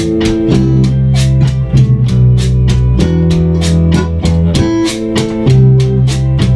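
Live band playing an instrumental passage of a salsa tune: electric bass and electric guitar over a steady drum beat of about four hits a second, with no singing.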